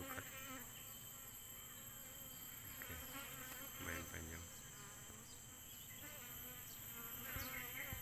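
Asian honey bees (Apis cerana) buzzing at their nest in a hollow tree trunk: a faint background hum, with single bees buzzing close past a few times.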